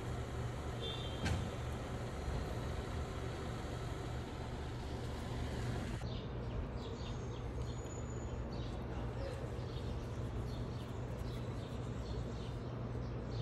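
Steady low mechanical hum, like vehicles running nearby. From about six seconds in, many faint short high chirps are heard over it.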